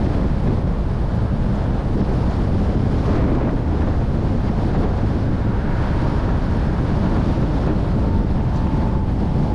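Steady wind buffeting the microphone of a moving car, a low rushing rumble with road noise underneath.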